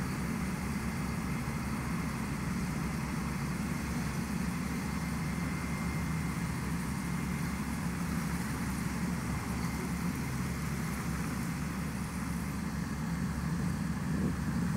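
Steady low rumble of idling vehicle engines, from the parked fire engine and the traffic around it, growing a little louder near the end.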